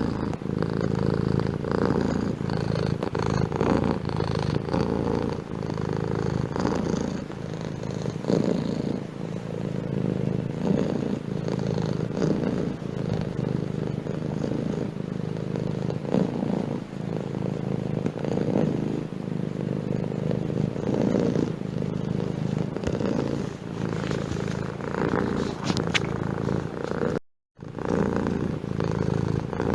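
Domestic cat purring steadily and close up, the rumble swelling and easing in waves with its breathing. The sound drops out completely for about half a second near the end.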